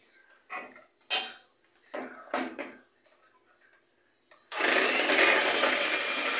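Electric hand mixer switched on near the end, running loud and steady as it starts beating egg whites. Before that, a few short stretches of voice are heard.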